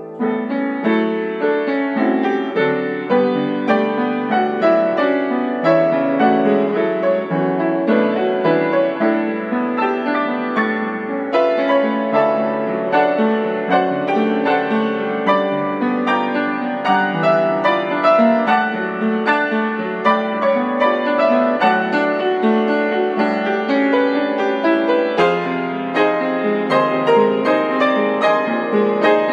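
Piano played continuously, a steady run of many notes over a wide range.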